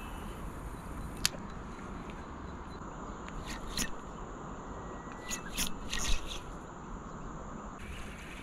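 Spinning rod and reel handled aboard a small boat: a sharp click about a second in, then two short clusters of clicks and rubbing a few seconds later, over a steady low hiss of wind and water.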